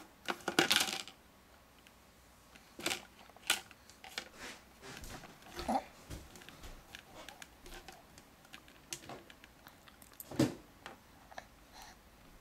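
A baby handling and knocking a kitchen strainer about: irregular clicks and taps, with a short clattering run about half a second in and a few louder knocks later.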